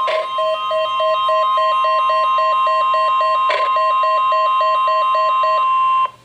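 Emergency Alert System attention tone: one steady, high alarm tone with a lower tone pulsing about four times a second beneath it. It is broken by two short clicks and cuts off abruptly about six seconds in.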